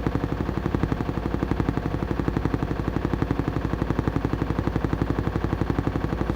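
Washing machine in its spin cycle, the drum spinning with a steady hum and a rapid, even knocking of about ten strokes a second.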